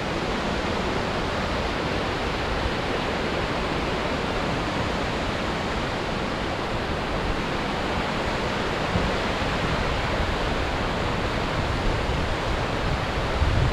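A fast mountain creek, the main fork of Rock Creek, rushing steadily.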